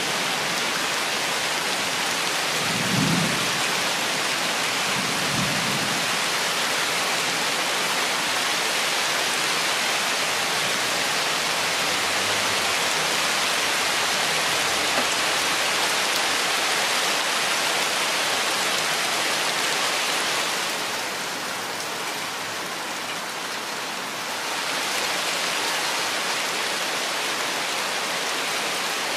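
Steady rainfall on forest foliage, with two short low rumbles of thunder a few seconds in. The rain eases slightly for a few seconds about two-thirds of the way through.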